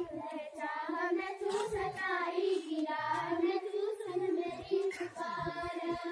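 Schoolchildren singing a Garhwali prayer to Goddess Saraswati together, a sung melody with no instruments.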